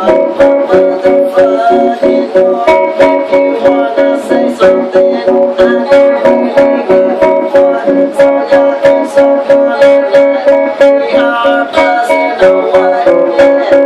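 Guitar strummed in a steady, fast rhythm, about four strums a second, with the chords changing now and then.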